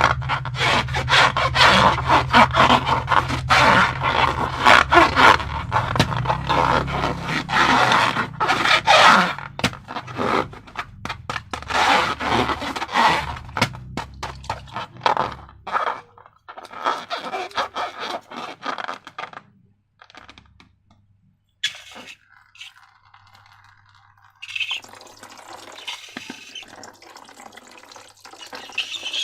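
Dense crackling and scraping of slime-making materials being handled, which stops about halfway through. Quieter sounds follow, with a steadier liquid-like noise near the end.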